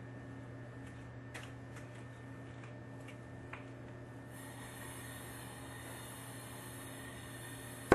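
Faint steady hum with a few soft clicks, and a faint high hiss that begins about halfway through. At the very end, a single sharp loud click as the soldering torch is lit, with its flame hiss just starting.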